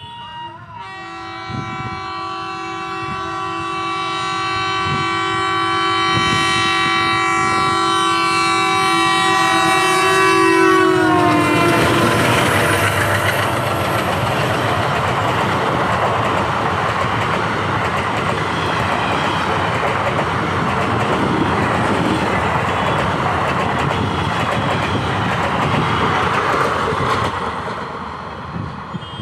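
Diesel-hauled express train passing close by. The locomotive's air horn sounds one long chord of several notes for about ten seconds and drops in pitch as it passes. Then comes the steady rumble and wheel clatter of the passenger coaches rolling by, which falls away near the end.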